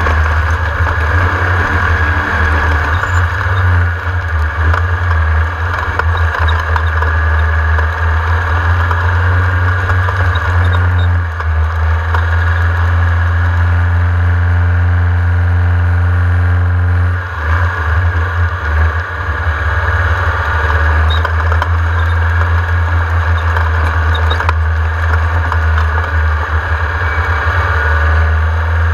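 Class 1600 off-road race car's air-cooled VW flat-four engine running continuously with a deep, steady drone. The engine note changes briefly about eleven seconds in and again about seventeen seconds in.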